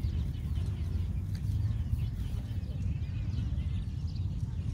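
Faint, high, falling bird chirps scattered over a steady low outdoor rumble.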